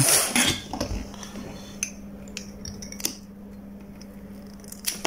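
Hands handling a metal desoldering gun and a small spanner: a brief rustle, then a few scattered metal clicks and clinks over a steady low hum.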